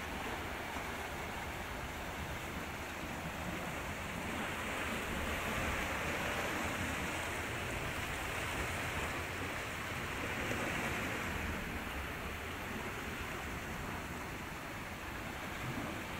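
Sea surf washing against rocks below a cliff: a steady rushing that swells from about four seconds in and eases after about eleven.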